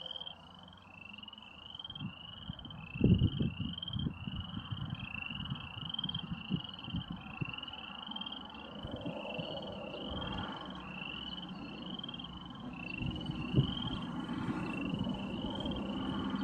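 Chorus of frogs calling: short rising calls repeat about twice a second without a break. Low gusts of wind rumble on the microphone, the loudest about three seconds in.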